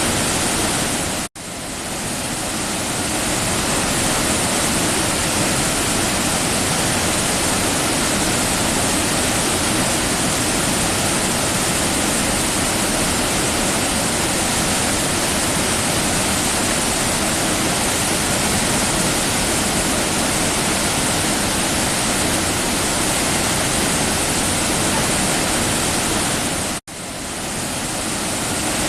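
Waterfall rushing: a loud, steady roar of falling water. It cuts out abruptly twice, about a second in and near the end, and fades back up each time.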